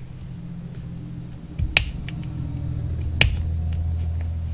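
Two sharp clicks about a second and a half apart as a small plastic paint bottle and its cap are handled and worked open, over a low steady hum.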